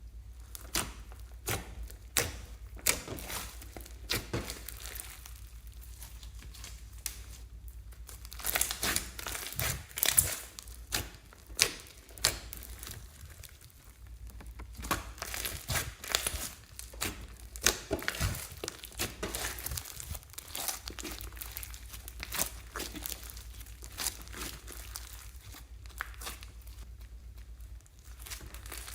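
Slime and plastic piping bags being squeezed and worked by hand: irregular crinkling, crackles and small pops, busiest about a third of the way in and again just past the middle.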